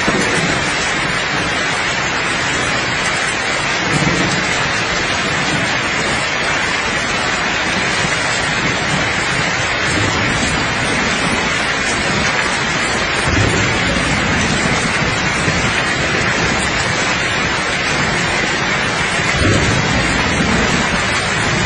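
Steady, heavy rain with soft low rumbles of distant thunder swelling up a few times.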